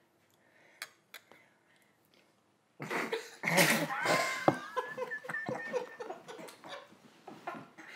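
Several adults coughing and laughing right after downing shots of strong liquor, the burn of the drink setting off the coughs, starting about three seconds in. Before that it is quiet apart from two faint clicks.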